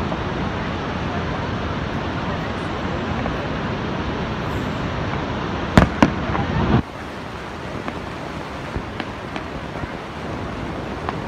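Distant fireworks shells bursting: two sharp bangs close together about six seconds in, then a few fainter pops, over a steady rushing background noise.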